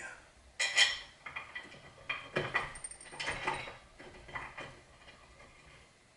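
Irregular light metallic clinks and taps of a variable clutch assembly and its mounting screws being handled against a Predator 212cc engine as the screws are started by hand; the loudest clink comes about a second in.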